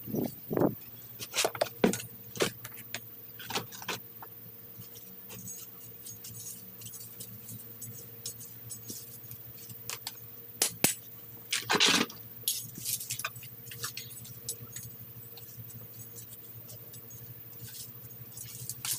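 Hand weeding tool scraping and clinking against brick pavers in short, irregular strokes, the longest scrape about twelve seconds in, over a faint steady hum.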